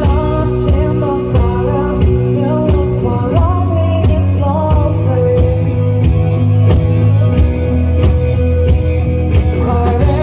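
Indie rock band playing live: drums, bass and guitars at full volume, with a sung melody over them.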